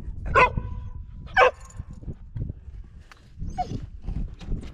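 A dog barks twice, loud and sharp, about a second apart, then gives a fainter, short falling yip a couple of seconds later.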